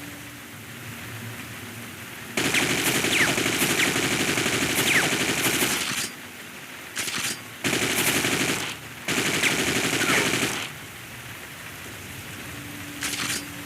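AK-47 automatic gunfire sound effect: a long burst of rapid fire lasting about three and a half seconds, a brief burst, then two more bursts of about a second and a half each.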